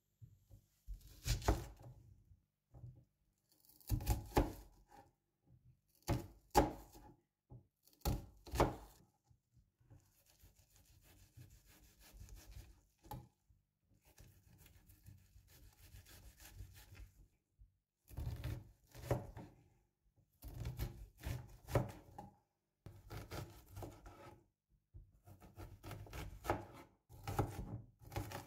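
Chef's knife cutting an onion on a plastic cutting board: a few separate cuts, each ending in a knock of the blade on the board, then from about two-thirds of the way in, runs of quick chopping strokes as the onion is diced.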